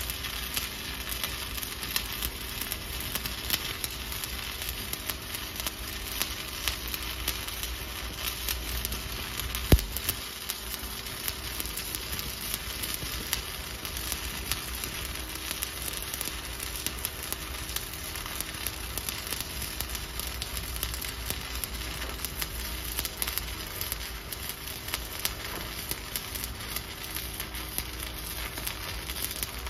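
Stick (SMAW) welding arc from a 7018 electrode running a vertical-up stringer bead on a 1-inch steel test plate: a steady crackling sizzle, with one sharper pop about ten seconds in.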